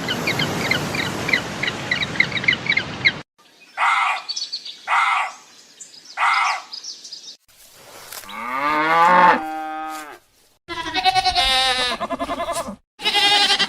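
A string of different animal calls cut one after another: rapid chirping for about three seconds, three short separate calls, then a long cow moo that rises and holds, followed by a fast pulsing, wavering call near the end.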